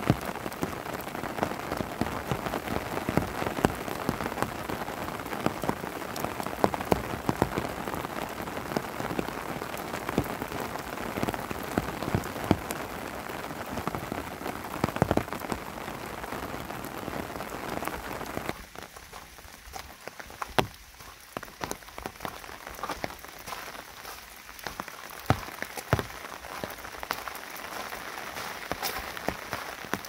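Steady rain falling in a leafy forest: a dense hiss of rain with many separate drop hits close by. About two-thirds of the way through it suddenly becomes quieter and sparser.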